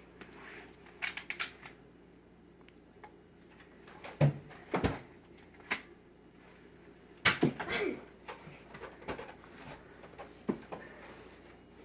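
Scattered sharp clicks and knocks: a quick cluster about a second in, two heavier knocks about four seconds in, and another cluster a little past seven seconds.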